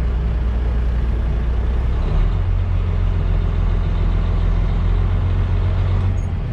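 Dump truck's diesel engine heard from inside the cab, running steadily; about two seconds in its note steps up and holds higher, easing back near the end.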